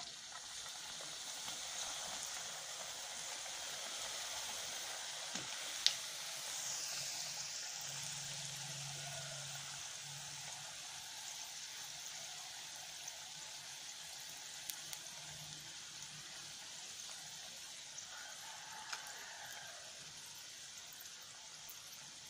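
Vegetable rolls frying in hot cooking oil in a metal pan: a steady sizzling and bubbling hiss that eases gradually toward the end, with one sharp click about six seconds in.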